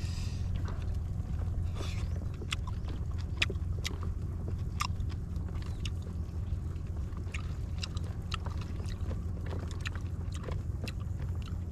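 A person chewing clam meat, with scattered small crunchy clicks, over a steady low rumble.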